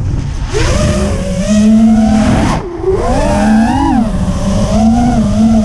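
FPV quadcopter's brushless motors and HQProp Ethix P3.5 propellers whining, the pitch rising and falling with throttle and dropping sharply about two and a half seconds in before climbing again, over heavy wind rumble.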